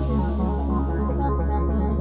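Electronic music with a steady bass and quick repeating synthesizer notes.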